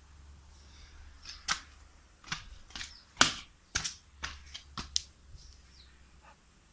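A run of about ten sharp, irregular clicks and taps, spread over some four seconds in the middle.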